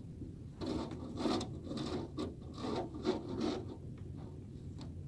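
Plastic snow shovel scraping snow off brick pavers in a quick run of strokes, about two a second, stopping about four seconds in.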